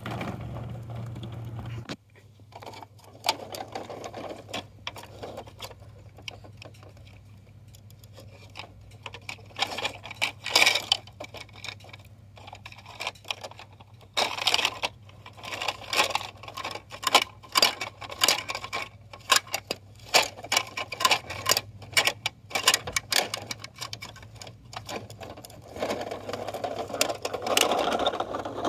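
Plastic toy garbage trucks clicking and rattling as they are worked by hand: the front loader arms, hoppers and small toy bins knock and clatter in quick irregular runs of clicks, busiest in the second half, over a low steady hum.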